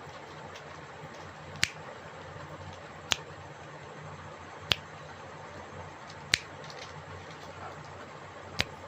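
Five sharp, single clicks about a second and a half apart, over a steady low hum.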